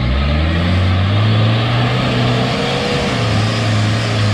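A 4x4's engine running at steady high revs, its pitch dipping briefly about three seconds in.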